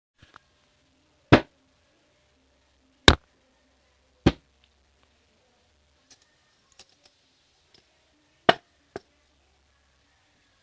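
Objects being picked up and put down on a hard surface: four sharp knocks at irregular gaps of one to four seconds, with a few fainter clicks of handling between them.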